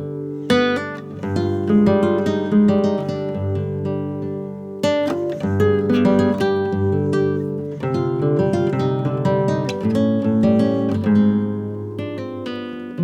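Acoustic guitar music, plucked and strummed, played through a two-channel audio amplifier and its speakers as a test of the amplifier's output.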